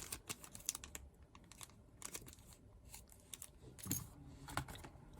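Scattered small clicks and light crinkling from handling plastic booster packaging and Beyblade parts, with a few sharper clicks near the middle and toward the end.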